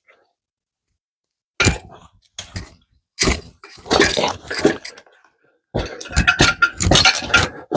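Steel tire irons clinking and scraping against a dirt bike wheel rim as the rear tire is levered off. Silent for about a second and a half, then repeated clanks and scrapes in several bursts, busiest near the end.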